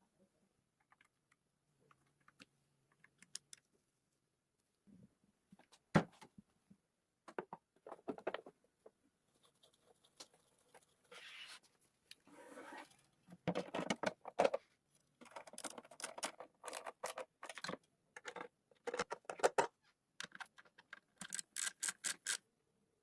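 Hand-work noises on a vintage radio under restoration: scattered small clicks, a sharp knock about six seconds in, a stretch of scratchy scraping, then busy clattering and clicking of small parts through the second half.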